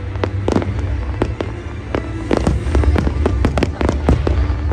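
Fireworks display: a rapid, irregular run of bangs and crackles that thickens about halfway through, over a steady low rumble.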